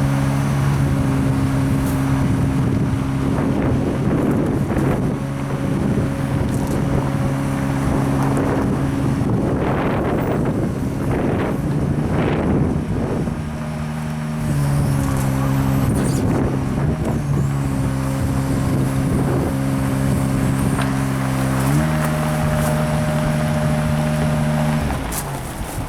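Tree-trimming bucket truck's engine running at raised idle to drive the boom hydraulics as the bucket is lowered. Its steady hum shifts pitch a couple of times and stops shortly before the end.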